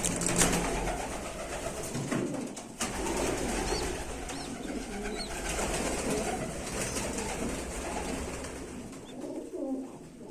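Domestic pigeons cooing, several calls overlapping continuously, with a few faint high chirps.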